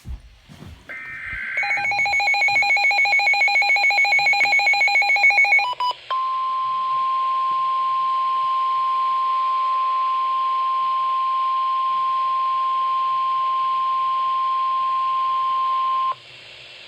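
Emergency Alert System broadcast tones from a weather radio. First, about four seconds of harsh, rapidly pulsing digital data tones (the SAME header). Then a steady single-pitch alarm tone, the roughly 1050 Hz weather radio warning alert, held for about ten seconds before it cuts off to a faint hiss.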